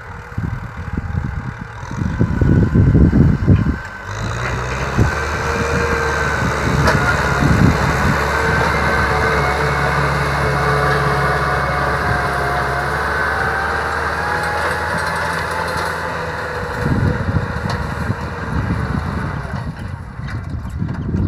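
Kubota tractor's diesel engine running steadily with a higher whine over it, with uneven low rumbling in the first few seconds and again near the end.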